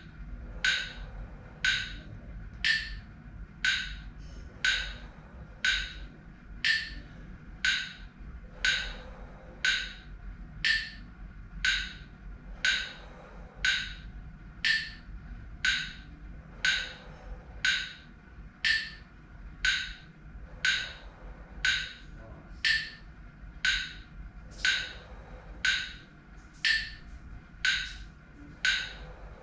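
Forceful, rhythmic breathing of a Wim Hof method breathing round: a short, sharp breath through pursed lips about once a second, steady in pace, with softer breathing between.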